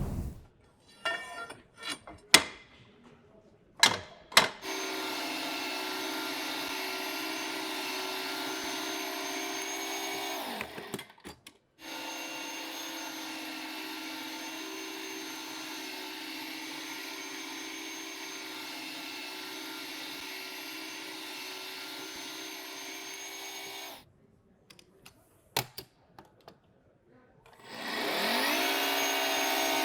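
Milwaukee MX FUEL stationary pipe threader at work: its motor runs steadily in two long stretches, winding down between them and spinning up again near the end. Knocks and clicks of the tool being handled and set up come between the runs.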